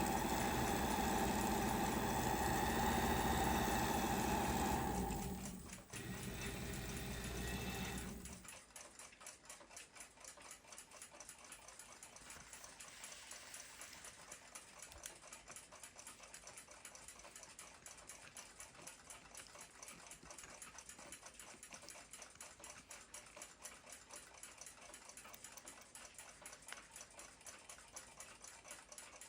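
A small power tool's motor runs with a steady whine for about eight seconds, dipping briefly near six seconds, then stops. After it, the fast, even ticking of the Junghans W146 ship's clock movement running on its platform escapement continues quietly.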